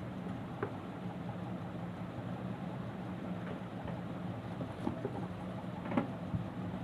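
A steady low mechanical hum, with a few light clicks and taps over it, the loudest one about six seconds in.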